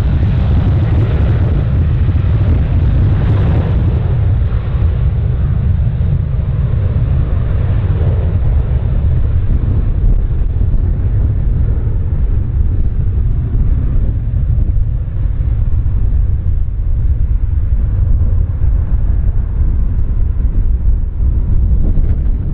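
Strong wind buffeting the microphone, a loud low rumble that does not let up. Over it, a broader rushing noise is strongest in the first few seconds and then fades away.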